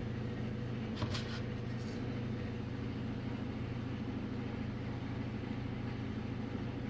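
Steady low mechanical hum, with a brief light clatter about a second in.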